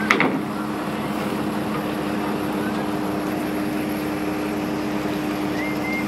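Steady machinery hum over a noisy background, with a sharp knock right at the start and a faint high whistle near the end.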